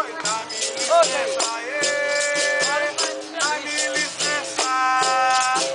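Capoeira roda music: berimbaus with their caxixi rattles, pandeiro and atabaque keeping a steady beat, with voices singing held notes over it.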